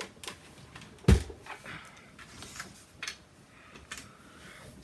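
A plastic tab punch set down on a craft cutting mat with a single thump about a second in, followed by light clicks and rustling of cardstock being handled.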